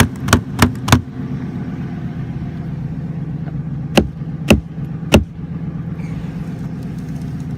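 V10 truck engine running steadily while driving, with seven sharp knocks over the hum: four in quick succession in the first second, and three more about four to five seconds in.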